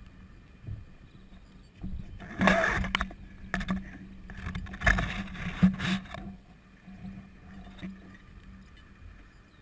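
Noisy rustling and buffeting in two spells, about two seconds in and again about four and a half seconds in, as parachute suspension lines and rigging shift and scrape over a GoPro lashed to a landed airdrop training bundle. A faint steady low hum runs underneath.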